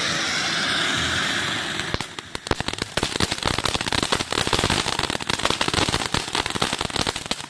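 Firework going off: a steady hiss for about two seconds, then rapid, dense crackling that cuts off suddenly near the end.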